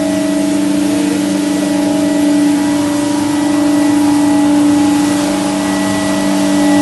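Spice pulverizer machine running steadily, with a loud, even hum made of several constant tones over a rushing noise. The loudness swells slightly a few times.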